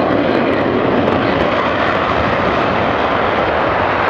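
F-15E Strike Eagle's twin Pratt & Whitney F100 jet engines at full takeoff power, a steady loud roar as the afterburners light and the jet starts its takeoff roll.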